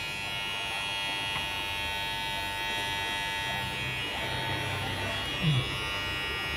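WMARK NG-115 cordless hair clipper running steadily at an even pitch, smooth and not noisy. A brief low sound cuts in about five and a half seconds in.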